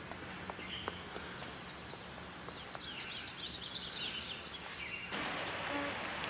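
Birds chirping in a quick cluster over steady outdoor ambience. About five seconds in, the background changes suddenly to a louder, steady street noise.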